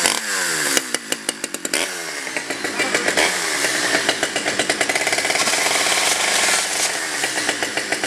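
Chainsaw running, its pitch dropping and rising in the first couple of seconds, then held at a fairly steady speed.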